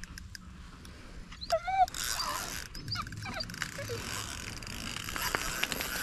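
Dog whining: a short, wavering, high-pitched whine about a second and a half in, another about three seconds in, and a softer one near four seconds.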